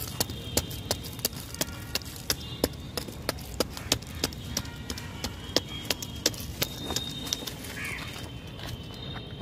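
A stick jabbing into hard, dry soil to dig a planting hole: sharp knocks at about three a second, stopping about eight seconds in.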